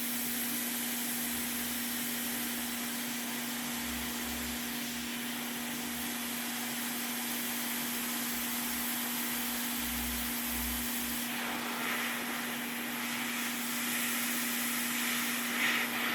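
Hot air rework station blowing a steady hiss onto a PS5 board to melt the solder holding a port, easing off about eleven seconds in. A few light clicks of metal tools come near the end.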